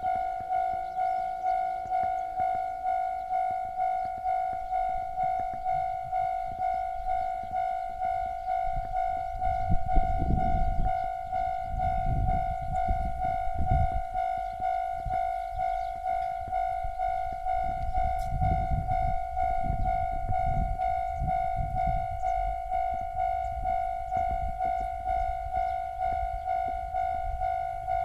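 Japanese level-crossing alarm ringing steadily, one pitched electronic strike about one and a half times a second. A two-car KiHa 48 diesel railcar train passes through it with a low rumble from about ten seconds in until about twenty-two seconds, while the alarm keeps ringing.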